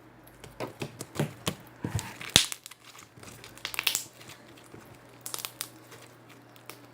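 Slime being squeezed and stretched by hand, giving irregular sticky crackles and clicks, with the sharpest snap about two and a half seconds in. The slime has gone stiff from much handling.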